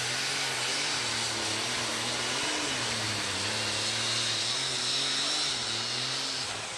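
Super stock pulling tractor's engine running flat out under full load as it drags the weight-transfer sled down the track, a loud steady drone with a strong hiss over it. The sound eases off near the end.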